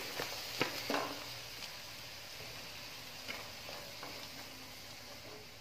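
Chopped onions sizzling in oil in a non-stick frying pan as they are stirred with a wooden spatula. A few knocks of the spatula against the pan come in the first second or so, then a soft, steady sizzle.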